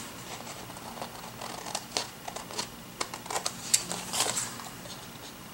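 Scissors snipping excess paper off a planner decoration, with a scattered run of short, light snips and clicks and some paper handling.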